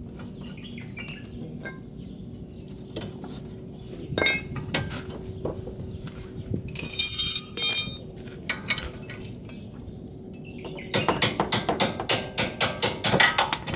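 Steel hand tools working on a car's brake caliper and hub: a knock, then a ringing metal clink about halfway through, then a ratchet wrench clicking rapidly for a couple of seconds near the end as the pins are backed out.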